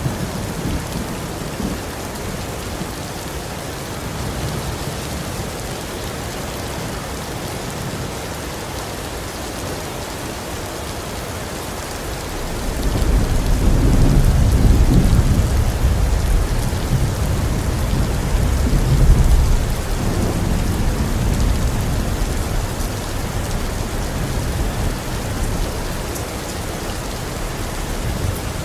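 Heavy rain falling steadily, with a long rolling rumble of thunder that swells up near the middle and fades out over several seconds.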